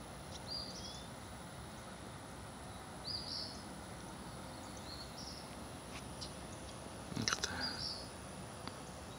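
Barn swallows giving short, high chirps, a few scattered calls several seconds apart, over a steady outdoor background hiss.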